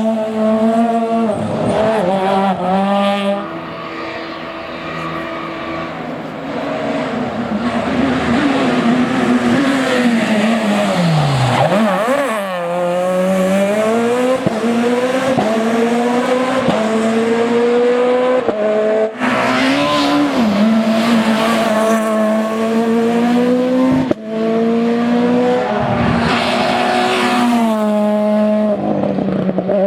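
Super 2000 rally car's naturally aspirated two-litre four-cylinder engine revving hard at full throttle. The pitch climbs with each gear and drops at the shifts and lifts, with a deep drop and re-climb about twelve seconds in.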